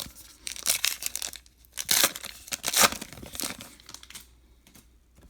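Baseball card pack's wrapper being torn open and crinkled in the hands, in several short rustling bursts. The loudest comes near three seconds in, and it settles down after about four seconds.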